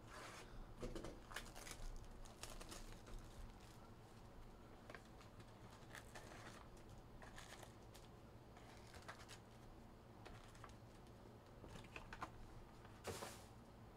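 Faint clicks, taps and crinkles of a trading-card box being opened and its foil-wrapped card packs being handled, with a brief louder rustle near the end.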